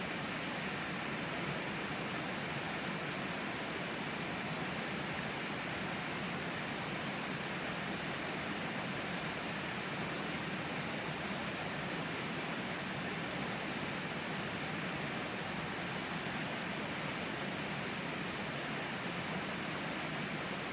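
Steady rushing of the Tama River flowing close by, heard as an even, hiss-like noise, with a steady high-pitched tone over it.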